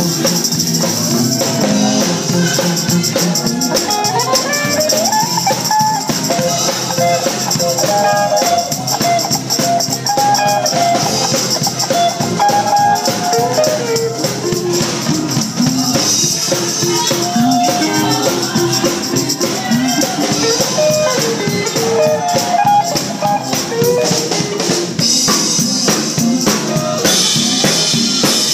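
A small live band playing: an electric guitar picks out a wandering melody with bent notes over a drum kit, with a steady, jingling high percussion layer throughout.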